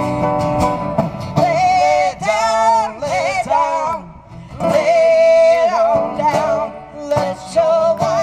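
A woman singing long, held phrases of a folk song over acoustic guitar accompaniment, live.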